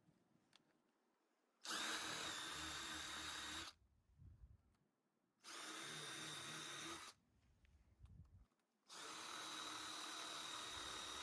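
Power drill running in three bursts, drilling drain holes into an old tyre. Each burst is a steady motor whine; the first two last one to two seconds each, and the third starts near the end and keeps going.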